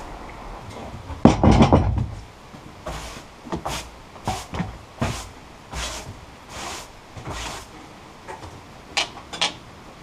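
Broom sweeping sawdust off freshly sawn alder boards: a run of short brushing strokes, under a second apart, after a loud thump about a second and a half in.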